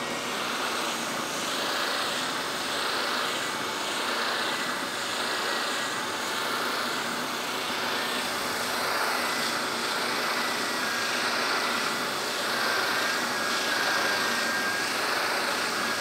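Oscillating spindle sander running steadily while the curved edge of a birch plywood cam lever is sanded against its drum. A faint high whine drops slightly in pitch about eleven seconds in.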